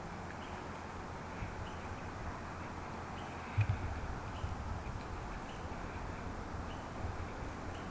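Outdoor woods ambience: a steady hiss of wind with low thumps of wind or handling on the microphone, the strongest about three and a half seconds in, and faint distant bird calls.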